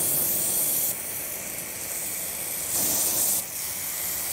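Pistol-grip garden hose nozzle spraying water into a bucket of car-wash soap, a steady hiss of spray churning up suds. The spray softens about a second in and is briefly louder again around three seconds in.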